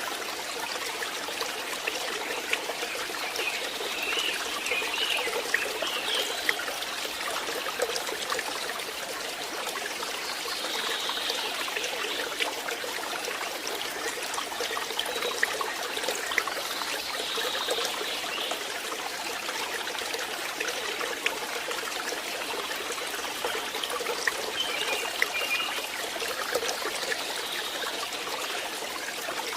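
Forest stream running steadily over rocks, a continuous trickling and splashing of water. Brief higher calls, likely birds, sound faintly now and then over it.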